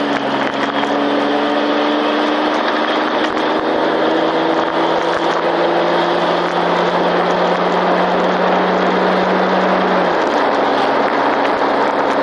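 Jeep engine pulling under hard acceleration, its note climbing slowly and dropping at a gear change right at the start and again about ten seconds in, with wind and road noise coming through the open windows.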